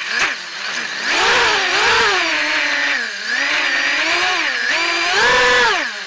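Racing quadcopter's four Cobra 2206 2100KV brushless motors and 5045 props whining. The pitch swings up and down with the throttle, dips about halfway through, then climbs highest and loudest near the end.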